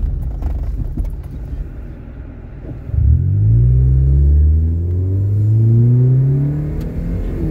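Toyota Yaris's 1.5-litre four-cylinder engine, with an aftermarket cold air intake and axle-back exhaust, heard from inside the cabin. It turns over low for about three seconds, then the car launches off the autocross start line and the engine note climbs steadily under full throttle in first gear.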